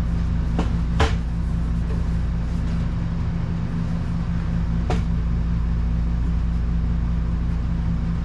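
Steady low mechanical hum in the workshop, with three sharp knocks of parts being handled: two about half a second apart near the start, and one near five seconds.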